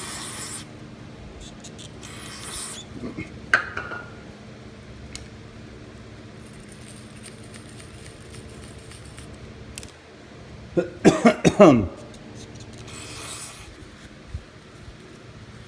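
Aerosol carburetor cleaner hissing in short sprays into the metal float bowl of a Honda GCV160 lawnmower carburetor, with light clinks of the bowl and the rubbing of a rag. About two-thirds of the way through comes the loudest sound, a brief run of falling squeaky strokes lasting about a second.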